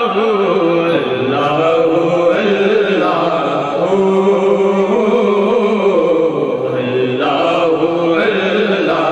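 Group of men chanting dhikr in unison over microphones and a loudspeaker, in long held sung phrases that break every second or two.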